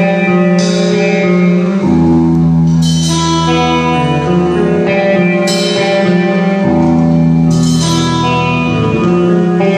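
Amplified guitar playing slow, sustained chords, a new chord struck about every two seconds.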